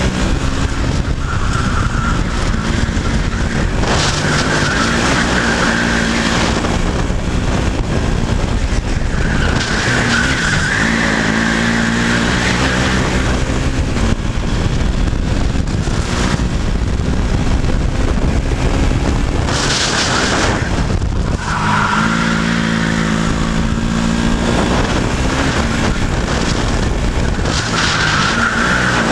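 Onboard sound of a KZ shifter kart's 125cc two-stroke engine at racing speed. Its pitch climbs and drops back again and again as the driver works through the gears and brakes for corners.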